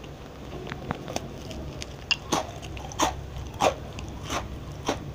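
Close-miked crunching of a crisp oat crunch cookie with chia seeds being eaten, a sharp crack about every half second.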